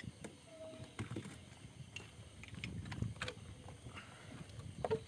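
Scattered light clicks and taps of oyster shells and a knife being handled.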